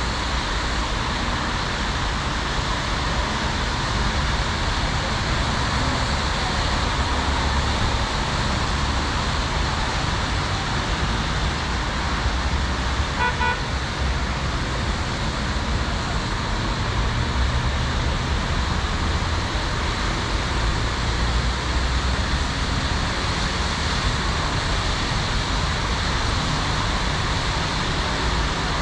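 Steady road traffic noise from cars on a wide road, with a brief run of short car-horn toots about halfway through.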